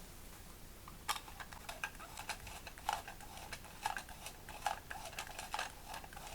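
Small plastic toy pieces being handled: irregular light clicks and taps, several a second, starting about a second in. The pieces are most likely a miniature toy washing machine and cloth being fitted together.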